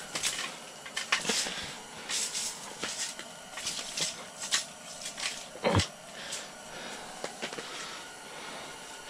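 Irregular rustling and scraping of hands and gear working on snowy ice, with scattered small knocks and one louder thump a little before six seconds in.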